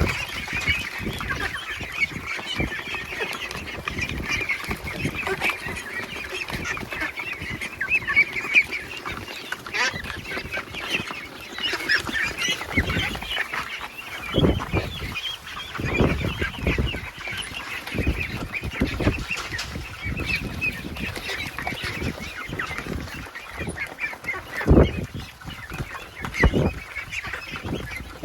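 A flock of feeding ducks calling continuously in a dense, overlapping chatter, with a few dull thumps now and then.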